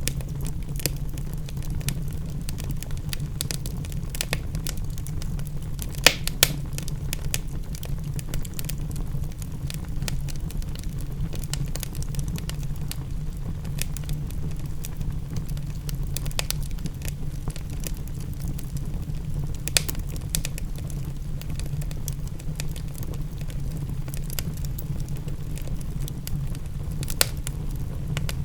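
Wood fire in a fireplace crackling, with scattered sharp pops, a few louder ones about six seconds in, near twenty seconds and near the end, over a steady low rumble.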